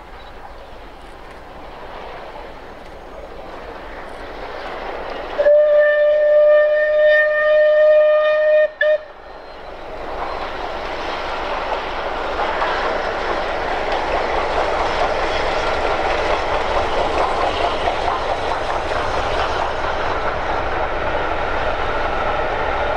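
Southern Railway Merchant Navy Class steam locomotive 35018 British India Line sounding its whistle, one long blast of about three seconds followed by a short toot. After that comes the rising rumble and rhythmic wheel clatter of the loco and its coaches coasting past.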